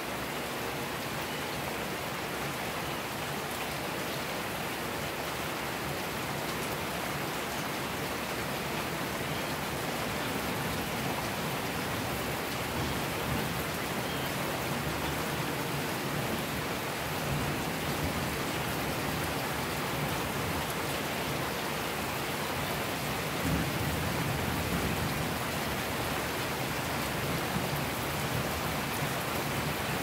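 Steady rain falling. Low rumbles of distant thunder swell up about halfway through and again a few seconds later.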